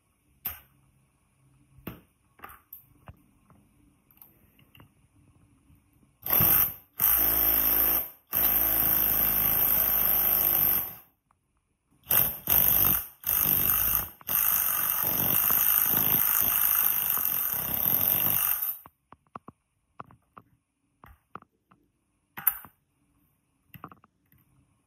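Cordless drill driving the screw of a two-jaw bearing puller in six bursts, the longest about four seconds, drawing a bearing off an electric water-pump motor's rotor shaft. Light metal clicks from setting up the puller come before the drilling, with a few more after it.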